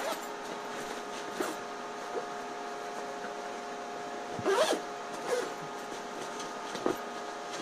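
Nylon fabric of a camouflage tactical backpack rustling and knocking in short spells as it is opened, folded and turned by hand, loudest about halfway through. Under it runs a steady background hum.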